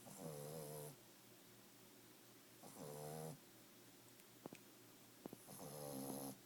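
Boston Terrier puppy snoring: three snores, each under a second long, about three seconds apart.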